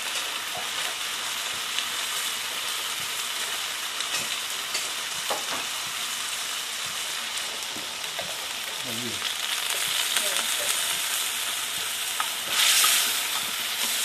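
Pieces of white-breasted waterhen meat and fresh turmeric sizzling steadily in hot oil in an aluminium pan, stirred now and then with chopsticks: the searing stage that firms up the meat before it is braised. The sizzle surges louder near the end.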